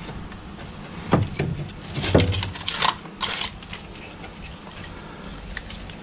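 A few sharp knocks and clatters of hand work on an air-conditioner installation, bunched between about one and three and a half seconds in, over a steady low hum.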